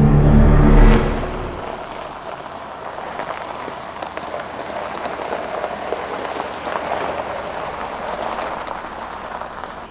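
Steady rain falling. A low music note cuts off about a second in.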